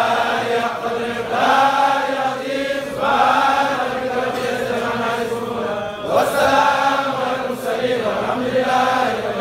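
A group of men chanting a Sufi dhikr together in unison, in long held phrases that break and start again every second or two.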